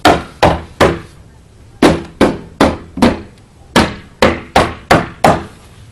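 A mallet tapping a translucent Storm Stoppers window panel into place in the window frame: twelve sharp taps in three quick runs, about two or three a second, seating the panel spot by spot.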